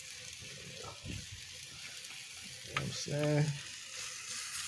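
Rice frying in a pan with a steady sizzle while a spatula stirs and scrapes through it. A short hum from the cook comes about three seconds in.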